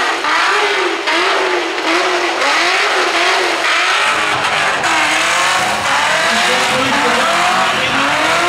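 Supercharged Holden VE Commodore doing a burnout, its engine revving up and down in quick, repeated waves over the steady hiss and squeal of spinning tyres.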